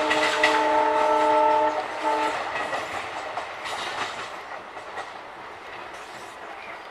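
WDG-4 diesel locomotive's multi-tone air horn honking, cutting off about two seconds in after a brief extra toot. The passing train's wheels then clatter over the rails, fading as it moves away.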